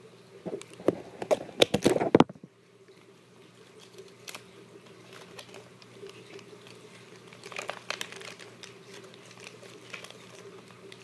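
Plastic toy packaging crinkling and crackling as it is handled, in a dense run over the first two seconds and again briefly about three-quarters of the way through, with scattered small clicks between.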